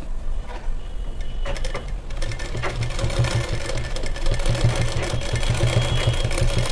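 Sewing machine running at speed, its stitching starting about a second and a half in. It is tacking a bra cup onto a blouse lining with a short run of stitches rather than a full seam.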